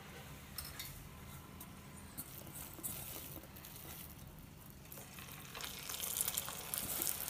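Cornflour-coated soya chunks dropped into hot oil in a kadai, sizzling and crackling from about five and a half seconds in and growing louder toward the end. Before that come only a few faint clicks of the chunks being handled in a steel bowl.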